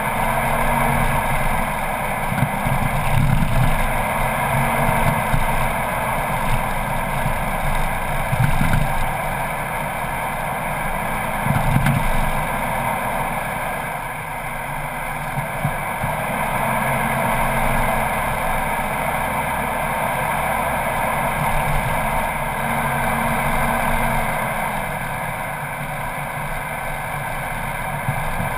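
Four-wheel-drive vehicle driving along a soft sand track, heard from its bonnet: steady engine and tyre noise, with a few brief jolts from bumps in the track.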